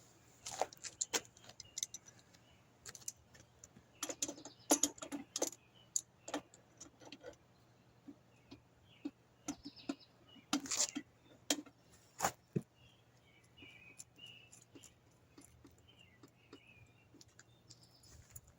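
Hand tools and bolts clicking and clinking in irregular clusters of short metallic knocks, from wrenches working on a motorcycle's rear axle and adjuster bolts.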